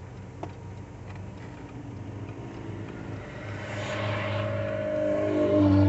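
Motorhome's diesel engine running, growing louder toward the end, with a single click about half a second in.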